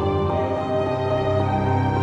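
Music with sustained, held chords; the notes change about half a second in and the low notes shift about a second in.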